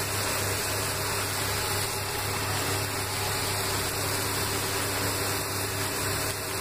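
Masala-coated cauliflower pieces deep-frying in hot oil in a metal kadai, a steady sizzle of bubbling oil, with a steady low hum underneath.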